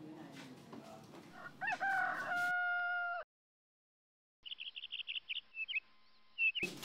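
A rooster crows once, about a second and a half in: a call that rises and then holds a steady pitch before stopping. After a short gap, small birds chirp in quick, short high notes.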